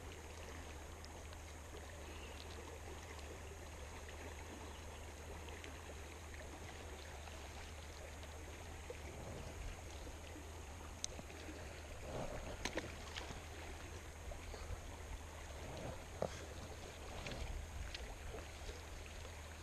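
Small creek running steadily over riffles. Over the second half there are a few light clicks and rustles close by.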